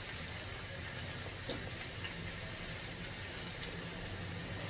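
Onions and tomatoes frying in hot oil in a kadai: a steady, quiet sizzle.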